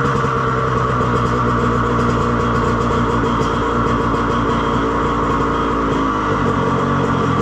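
2014 Yamaha YZ85's 85cc two-stroke single-cylinder engine running through an FMF Turbine Core 2 exhaust, held at a steady speed and easing down slightly near the end.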